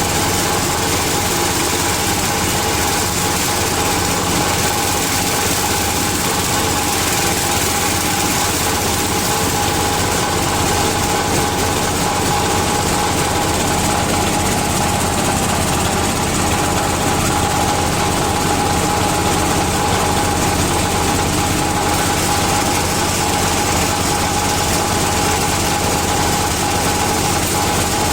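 Palm frond chopper machine running steadily under its 16 HP diesel engine, the engine's drone mixed with a steady high hum from the spinning rotor.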